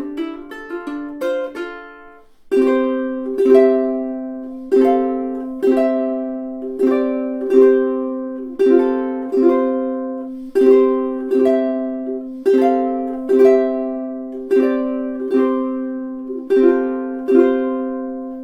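Big Island OE-TRC-EB all-solid mango tenor ukulele played unplugged: quick picked single notes for about two seconds, then chords strummed roughly once a second, each left to ring.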